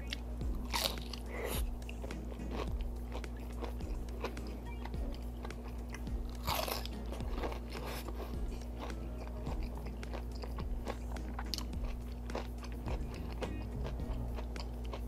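Close-up chewing of sauce-soaked crispy fried chicken fillet and rice: crunching with small wet clicks and smacks throughout, and louder crunches about a second in and again around six and a half seconds.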